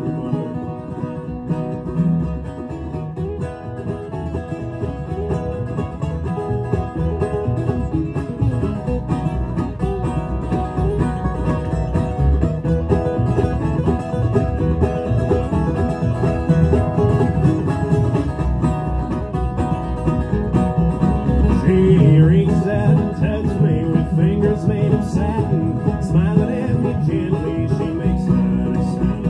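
Acoustic bluegrass string band playing live: mandolin and two acoustic guitars picking over upright bass.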